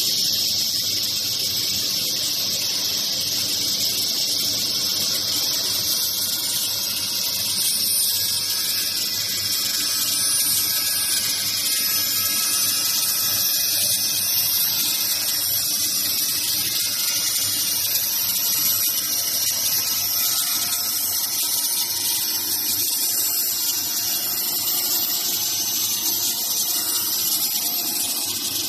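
Veneer saw machine running, its circular blade and motor giving a steady high-pitched hiss that doesn't change.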